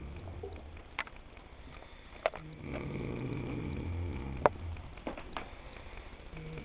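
A person snoring: slow, low, rasping breaths, one trailing off about a second in and a longer one from about two and a half to five seconds in. A few sharp clicks fall between the breaths.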